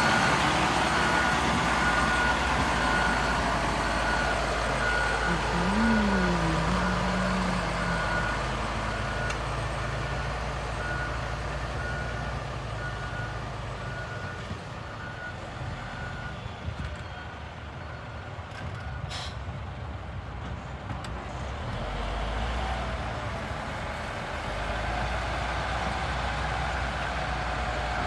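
Reversing alarm of heavy road-construction machinery beeping steadily over its running engine. The beeps fade out about halfway through while the engine keeps running.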